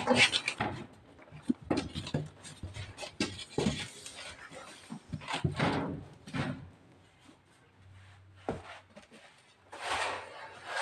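Cardboard box flaps being pulled open and cardboard rustling and scraping as a ceramic toilet is lifted out of its packing, with scattered knocks. It goes quiet for a few seconds, then more cardboard rustling near the end.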